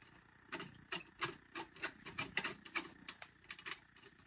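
A quick, irregular run of light taps or clicks, about five a second, starting about half a second in and stopping near the end.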